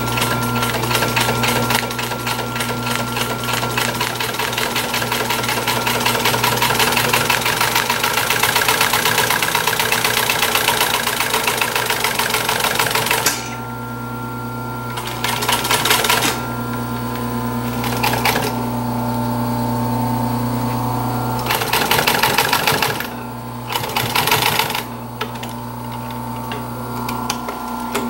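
Industrial sewing machine stitching: one long run of fast, even needle strokes for about thirteen seconds, then several short bursts with pauses between. A steady hum carries on underneath, through the pauses too.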